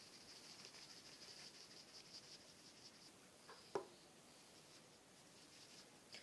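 Near silence with a faint, fast, high-pitched pulsing for the first three seconds, then a single sharp knock a little under four seconds in as the hand-held cup of sugar is handled on the table.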